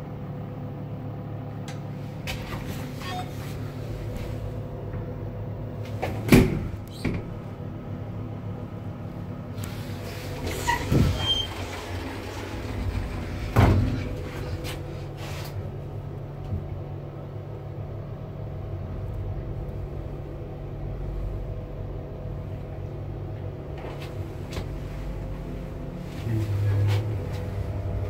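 Passenger lift travelling in its shaft: a steady low mechanical hum with a faint higher tone, broken by a few sharp clicks and knocks in the first half and a low thump near the end.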